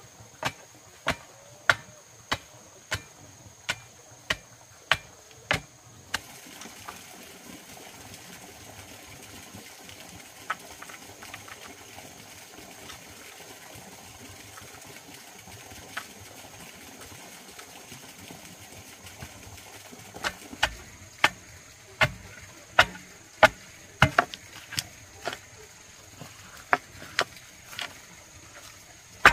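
Sharp, regular knocks, about one every 0.6 seconds, like a tool striking repeatedly. They stop about six seconds in, giving way to a steady hiss with a few stray clicks, then start again near the end.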